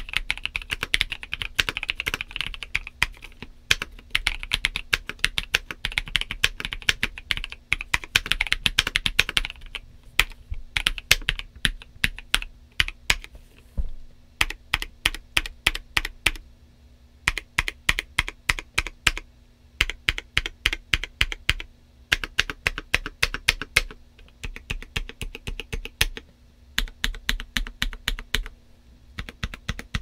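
Monsgeek M2 mechanical keyboard with lubed Kailh Cream linear switches and Akko MDA double-shot PBT keycaps being typed on: quick continuous typing for the first nine or ten seconds, then single keys pressed one after another in short runs with brief pauses.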